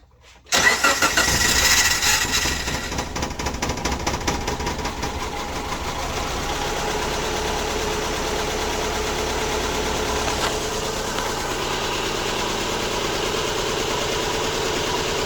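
Subaru Impreza flat-four engine starting about half a second in, flaring up briefly and then settling into a steady idle. It is misfiring, still clearly missing on cylinders 1 and 3 even with those coils swapped.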